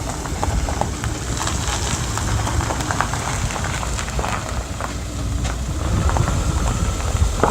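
A car's engine and tyres on the road close by, with wind rumbling on the microphone and a light crackling hiss throughout.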